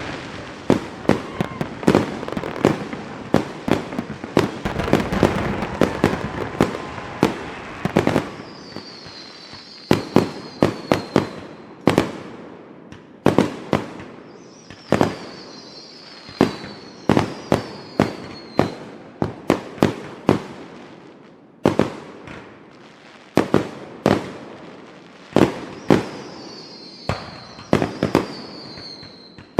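Fireworks going off: a rapid run of sharp bangs with crackling for the first eight seconds or so, then separate bangs, with several high whistles falling in pitch.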